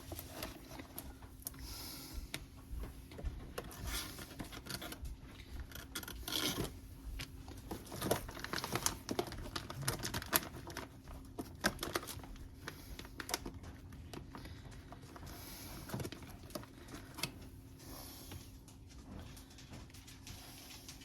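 Scattered light taps, clicks and rustles of hands piling sliced deli meat onto slider buns on a counter, with a faint steady hum underneath.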